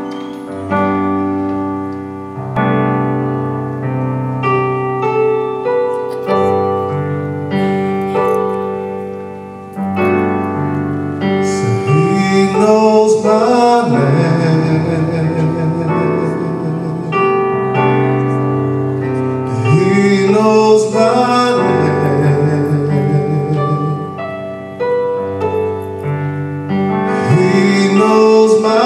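Piano accompaniment playing slow chords and single notes, each decaying. About eleven seconds in, a man's voice joins, singing long notes that slide in pitch over the piano.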